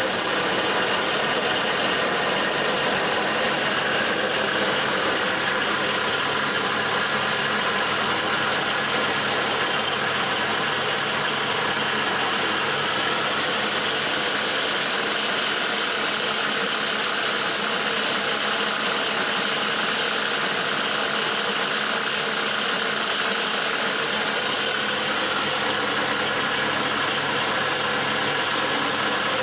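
Gabbiani SA 300/100 caterpillar-feed multi-rip saw running steadily: an even machine hum and whine with several fixed tones that hold without change.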